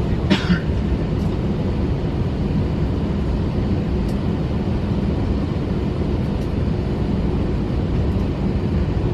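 Steady low rumble and hiss inside an Airbus A321 cabin on the ground before departure, the drone of the aircraft's air supply and machinery, with a short higher sound about half a second in and a few faint clicks.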